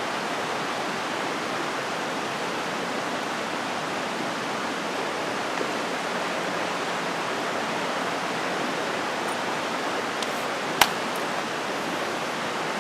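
Steady rush of creek water, an even hiss that does not change, with one sharp click about eleven seconds in.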